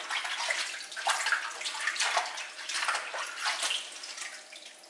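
Water splashing and sloshing in uneven bursts as perilla leaf shoots are swished by hand in water to rinse off the soil; the splashing dies down near the end.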